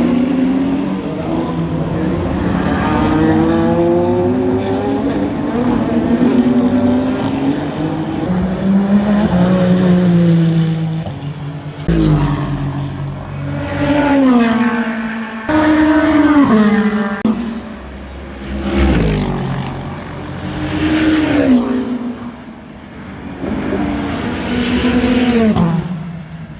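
Endurance race cars running at speed, several passing one after another, each engine note climbing and then dropping in pitch as the car goes by. The sound changes abruptly about twelve and fifteen seconds in.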